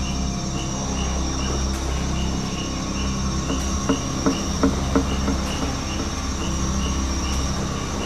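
MAN truck camper's diesel engine running at low speed as the truck crawls through deep mud, with a few sharp knocks from the truck about four to five seconds in. Tropical insects shrill steadily behind it, one pulsing about twice a second.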